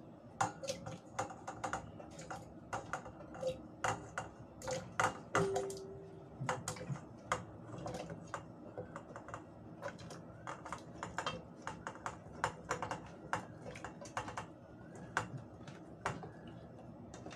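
Raw cubes of pumpkin and taro dropped by hand from a steel bowl into a stainless steel pot: an irregular run of light knocks and clatters, several a second.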